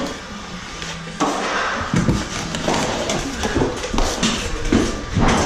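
Metal drywall taping knife scraping and knocking against a mud pan of joint compound: a run of irregular scrapes and clacks starting about a second in.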